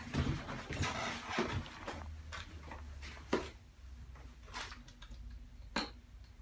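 A person moving about and handling things in a small tiled room: scattered knocks and clicks, the sharpest about halfway through and another near the end.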